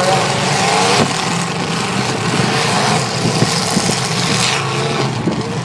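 Demolition derby cars' engines running and revving together, with a sharp thump about a second in.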